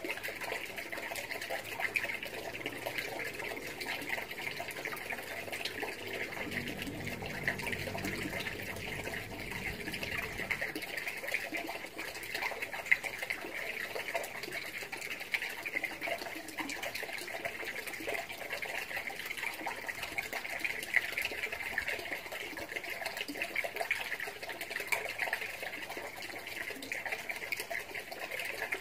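Water running steadily into a small concrete fish pond, a continuous trickling and splashing.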